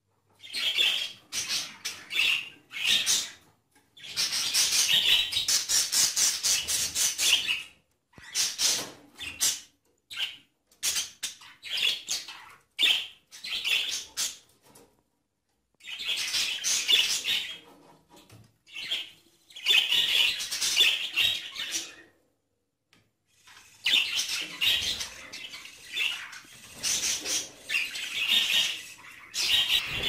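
Budgerigars chattering and warbling in bursts of rapid, high chirps, with short pauses between the bursts.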